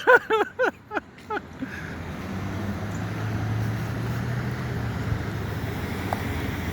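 Coin-operated car wash vacuum running steadily with a low hum and a rushing of air. In the first second or so it is preceded by a quick run of short pitched vocal sounds.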